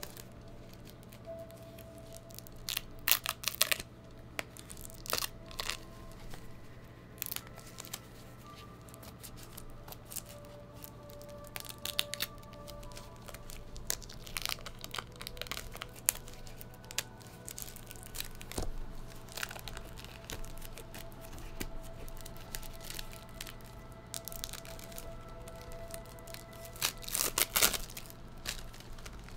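Cellophane shrink-wrap being torn and peeled off a perfume box, crinkling and crackling in scattered bursts that are loudest a few seconds in and again near the end, over soft background music.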